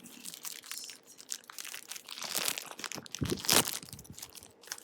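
Packaging crinkling and rustling in irregular bursts as a cloth face mask is handled and unwrapped, loudest about three and a half seconds in.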